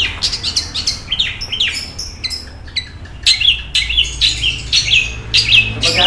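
Caged long-tailed shrike (cendet) calling in a string of short, sharp down-slurred chirps, with a brief pause around the middle and then about two a second.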